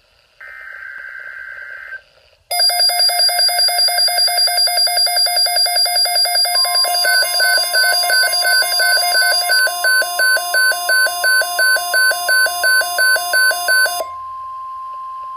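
A NOAA Weather Radio SAME header data burst, harsh buzzing digital tones, is followed by two Midland weather radios sounding their alert alarms for a severe thunderstorm watch: loud, rapidly pulsing electronic beeps. About halfway through, the broadcast's steady 1050 Hz alert tone joins in. The beeping stops near the end, leaving the steady tone alone.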